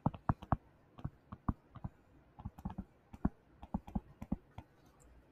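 Stylus tapping and clicking on a tablet or touchscreen while handwriting: a quick, irregular run of light ticks as each letter is written.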